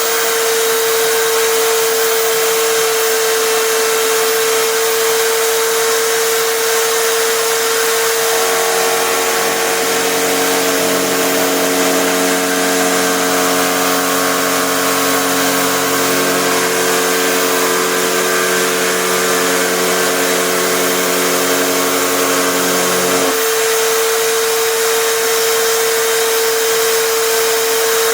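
Electric drill spinning a router bit in a homemade router table, running steadily at one pitch. From about eight seconds in until about twenty-three seconds in, lower tones join as the bit cuts into plywood, then drop away.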